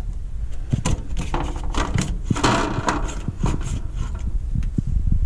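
Roof vent in a van's ceiling being turned by its twist knob: a run of irregular plastic clicks and knocks, with a rasping stretch about halfway through, over a steady low rumble.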